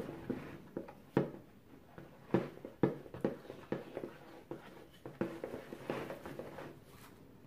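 Irregular knocks and scrapes of a stirring utensil against a mixing bowl as a lumpy glue-based slime mixture is mixed, with glitter being poured in.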